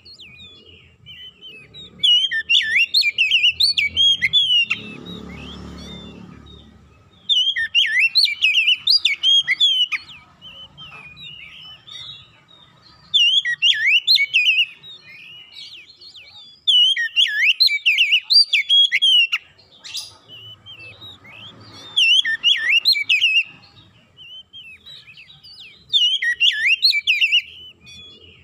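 Oriental magpie-robin (kacer) singing: about six bursts of rapid, varied whistled phrases, each lasting a second or two, with pauses of a few seconds between them. A brief low rumble sounds between the first two bursts.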